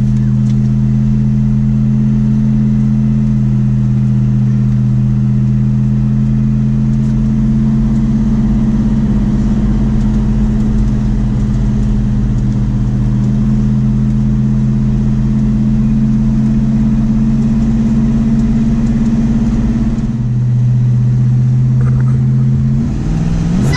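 1966 Dodge Dart GT engine running steadily at cruising speed, heard inside the cabin with road noise. Its note shifts and briefly dips near the end. The owner thinks it sounds like higher compression than the factory 8.8:1.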